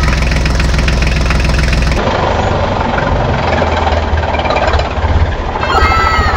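Tractor engine running with a steady low chug. About two seconds in it switches abruptly to a different engine sound with a faster low pulsing.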